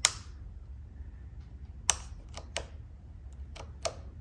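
A handful of short, sharp clicks and taps, the loudest right at the start and just before two seconds in, over a low steady hum.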